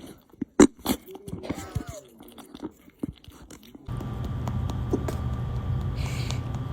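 Cat hiccuping softly: a run of small, sudden clicks and gulps, irregularly spaced. About four seconds in, a steady low hum starts abruptly under them.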